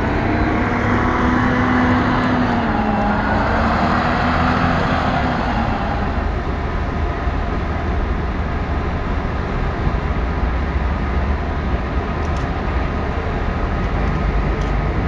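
Street traffic noise: a motor vehicle passes during the first few seconds, its engine pitch sliding and then fading, followed by steady traffic noise with a strong low rumble.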